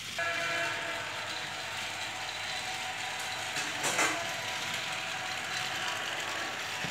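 Battery-powered toy train running around its plastic track, its small motor and gears whirring steadily, with a brief louder rattle about four seconds in.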